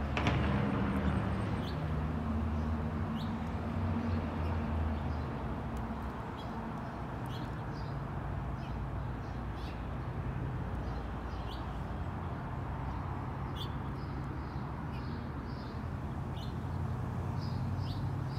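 Small songbirds chirping in short, high notes scattered throughout, over a steady outdoor background hum. A low engine drone fades away over the first five seconds or so.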